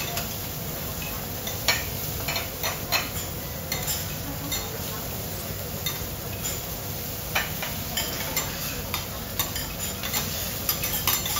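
Metal utensils clicking and tapping irregularly on a teppanyaki griddle, over a steady hiss of food sizzling.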